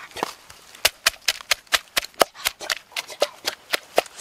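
Wooden pestle pounding chili peppers in a wooden mortar: a steady run of sharp knocks, about four a second, starting about a second in.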